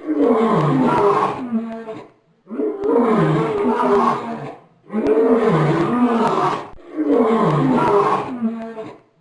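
Bear growling sound effect: four long, loud roaring growls of about two seconds each with short gaps between them, each falling in pitch, the same call repeated.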